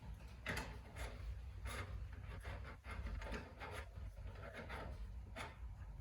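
Faint handling noises: scattered rustles and light knocks, irregular, over a low steady hum.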